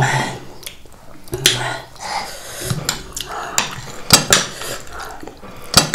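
A metal spoon clinking and scraping on ceramic dinner plates in a scattered string of sharp clicks, with the soft sounds of people eating.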